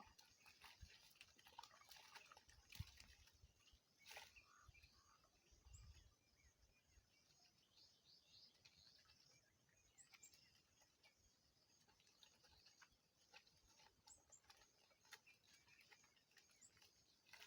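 Near silence: faint outdoor background with scattered small clicks, brief high chirps and a few soft low thumps.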